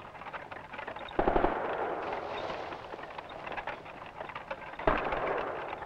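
Machine-gun fire, which the soldier names as an MG 42: a sudden rapid burst about a second in and another short burst near the end, with a rushing noise between.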